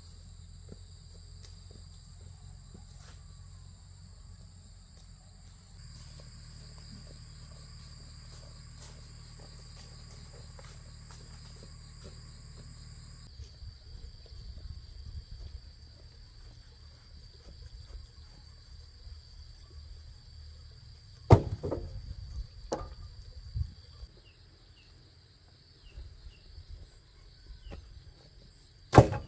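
Insects calling steadily in high, unbroken tones over a low hum, broken by a few sharp knocks; the loudest come about two-thirds of the way through and again at the very end.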